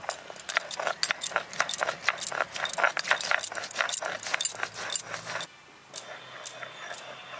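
Stone roller worked on a flat grinding stone (sil-batta), crushing black peppercorns into a wet spice paste: rapid, irregular clicks and crunches of stone on stone and cracking peppercorns. The clicking stops about five and a half seconds in, leaving only a few scattered clicks.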